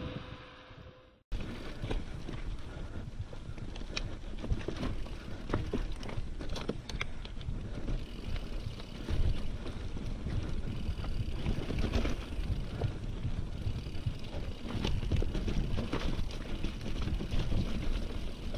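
Specialized Stumpjumper mountain bike riding over rocky singletrack: a steady rumble of tyres on stones with frequent clattering knocks and rattles from the bike, and wind buffeting the camera microphone. The sound fades away in the first second and then starts again abruptly.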